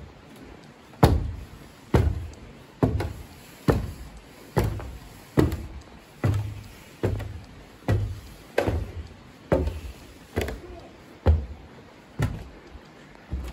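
Footsteps climbing an open wooden staircase: a steady series of hollow thuds on the wooden treads, a little more than one step a second, starting about a second in.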